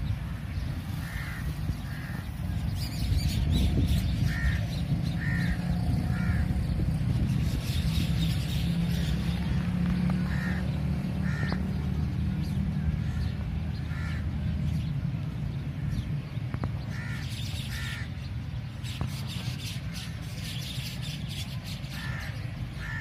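Crows cawing, short calls repeated in ones, twos and threes, over a steady low rumble that is loudest in the first half.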